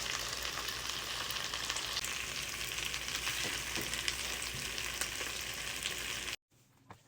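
Food frying in hot oil in a pan, a steady sizzle dotted with small crackles, which cuts off abruptly about six seconds in.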